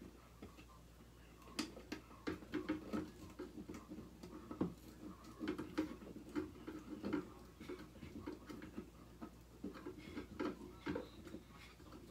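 Plastic wire nuts being twisted onto spliced pairs of electrical wires: many small, irregular clicks and scrapes, starting about a second and a half in.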